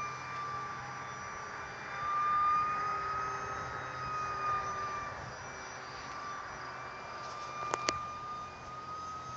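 Small electric RC model MiG jet flying overhead: a steady high whine that wavers a little in pitch and swells about two seconds in. Two sharp clicks close together near the end.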